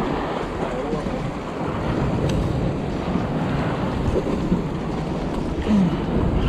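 Steady wind rumbling on the microphone over small waves washing and splashing against jetty rocks.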